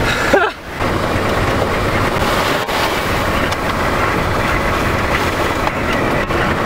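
Steady rush of wind and road noise heard from inside a moving car, after a brief drop in level about half a second in.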